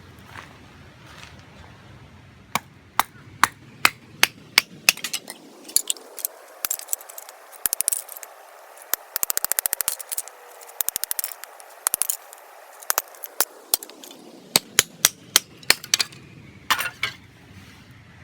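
Campfire crackling: sharp wood pops, singly and in quick runs, densest in the middle. Under them a low steady background rumble fades out and comes back near the end.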